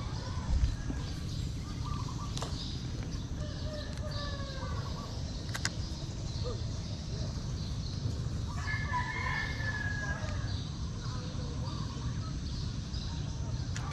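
A rooster crowing: a fainter call a few seconds in, then a fuller crow of about two seconds past the middle, over a steady low background rumble.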